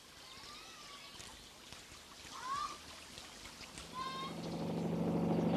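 Quiet outdoor ambience with a few faint animal calls, short rising and falling cries. From about four seconds in, a steady low engine drone fades in and grows louder.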